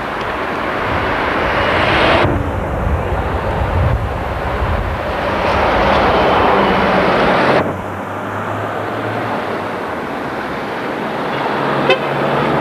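Loud steady rushing outdoor noise on a camcorder microphone, a mix of air and street sound with no single source standing out. It changes abruptly twice, about two seconds in and again after seven seconds.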